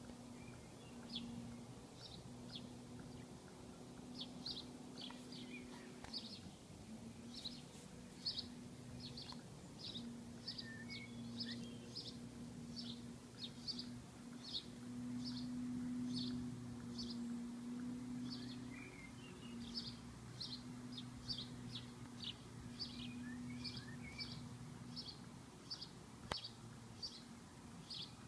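A bird chirping over and over, short single chirps at a fairly even pace of about two a second, with a few fainter calls from other birds. A low steady hum runs underneath.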